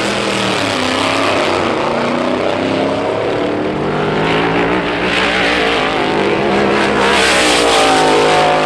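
Drag-racing car engine running loud at high revs, its pitch rising toward the end.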